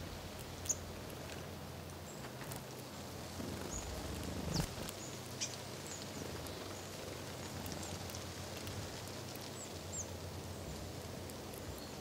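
Great spotted woodpecker pecking at a dead branch: a few scattered sharp taps on the wood, the loudest about half a second in and midway. Faint short high bird calls dot the steady low outdoor background.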